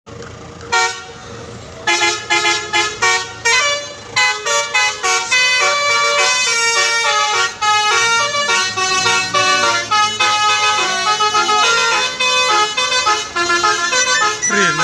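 Bus-mounted telolet basuri, a multi-trumpet electric musical horn, playing a melody. A few separate notes come first, then quick short notes, then longer held notes.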